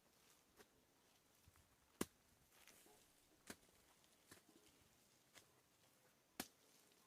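Faint, scattered sharp knocks or clicks, about one every second at uneven spacing, over near silence; the loudest comes about two seconds in.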